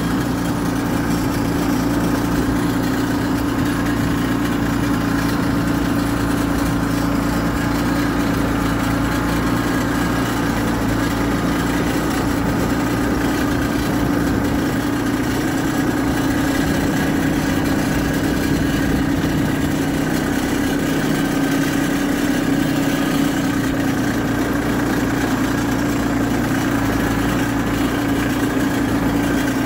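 Compact loader tractor's engine running steadily as the tractor drives along, heard from the operator's seat.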